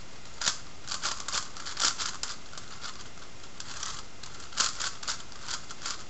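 Plastic 5x5x5 Rubik's cube (Professor's Cube) being turned by hand: quick clusters of clicking and clacking as its layers are twisted, with a pause of about two seconds in the middle.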